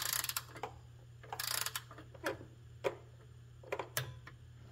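Click-type torque wrench on an extension tightening the transmission pan bolts: two short bursts of ratcheting, then four sharp single clicks in the second half, the wrench clicking off at its 12 ft-lb setting.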